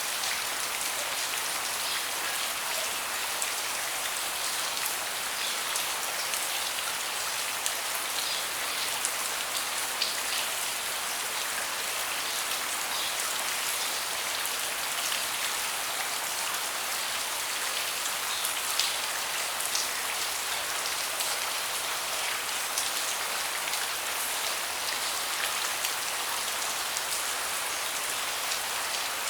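Steady rain with a hiss and many individual drops ticking, a few louder than the rest.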